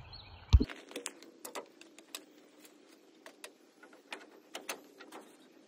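A series of irregular light ticks and taps, a few a second at first and then sparser, after a single sharp thump about half a second in.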